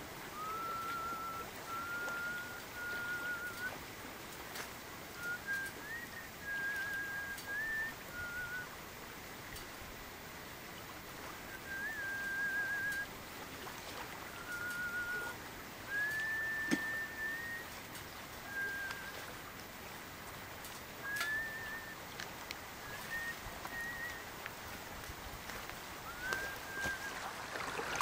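A person whistling a slow tune: a string of held notes that step up and down in pitch, some with a slight wobble, separated by short pauses. A few faint clicks and knocks come in between.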